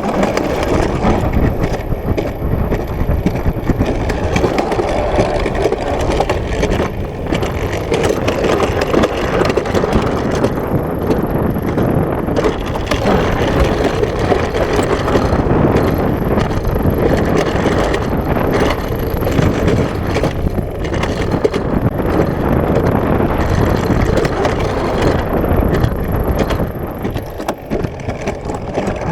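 Alpine coaster sled rolling fast down its steel track: a loud, steady rumble of the wheels on the rail, mixed with wind on the microphone.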